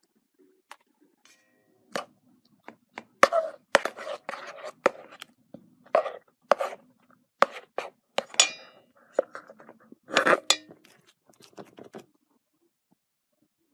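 Irregular sharp taps, knocks and clinks of hard objects being handled, a few with a brief ring. They stop near the end.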